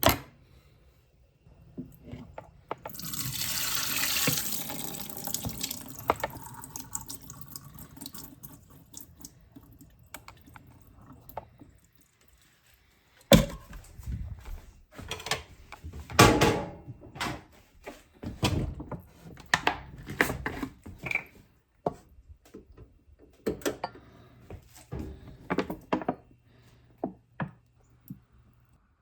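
Water running from a kitchen tap into a sink, a rush that starts a few seconds in and fades away, followed by a run of separate knocks and clatters.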